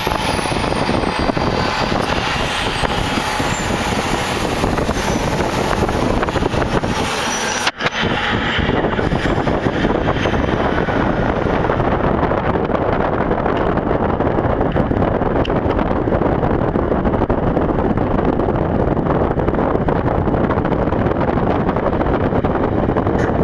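Steady city traffic and road noise heard from inside a moving car. The sound drops out for an instant about eight seconds in and then carries on with less hiss.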